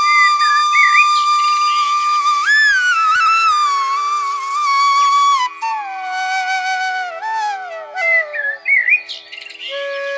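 Background music: a flute melody of long held notes that slide between pitches, over a steady drone.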